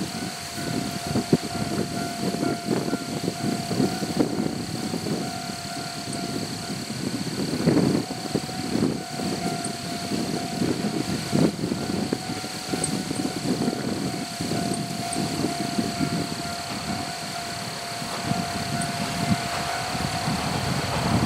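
Level crossing warning alarm sounding steadily as a diesel railcar train passes, the train's running and wheel knocks over the rail joints rumbling beneath it; the alarm stops near the end.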